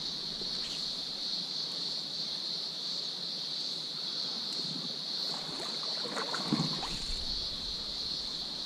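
Steady high-pitched drone of insects over the rush of a shallow stream riffle. About six and a half seconds in comes a short, louder rustle and knock.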